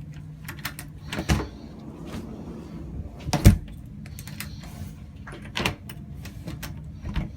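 A door with a newly installed doorknob and deadbolt being tried: repeated clicks and rattles of the latch and lock, with three louder knocks, about a second in, the loudest about three and a half seconds in, and another near five and a half seconds. A steady low hum runs underneath.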